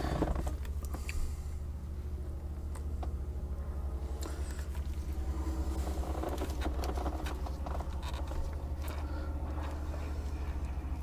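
Scattered small clicks, scrapes and rustles of gloved hands handling wiring and connectors behind a boat's dashboard, over a steady low hum.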